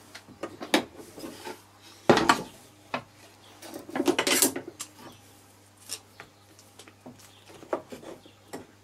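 Workshop handling of steel bar clamps and chipboard panels: a sharp knock about two seconds in, then a rattling clatter of metal clamps knocking against each other about four seconds in as one is picked from the pile, with lighter clicks and knocks scattered after.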